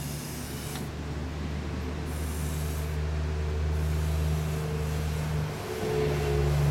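A motor hums steadily, dipping briefly near the end, while a spray hisses on and off in short spurts.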